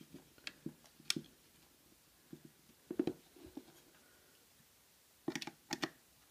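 Small plastic clicks and knocks from hands fitting the antennas onto the plastic magnetic antenna base of an ASUS PCE-AC68 Wi-Fi card. The handling noises come scattered and irregular, with a quick cluster of several clicks a little after five seconds in.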